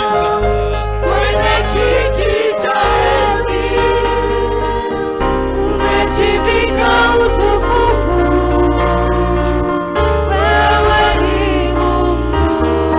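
Gospel worship music: a group of voices singing over instrumental accompaniment, with sustained bass notes that change every few seconds.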